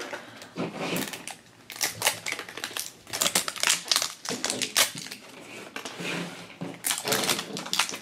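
Plastic wrapping crinkling and sticker seals peeling as an L.O.L. Surprise blind ball is unwrapped by hand, in irregular crackles and clicks.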